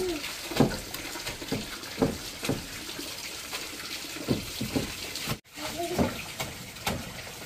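Water running and splashing, with irregular knocks and splashes every half second or so, cut off briefly about five seconds in.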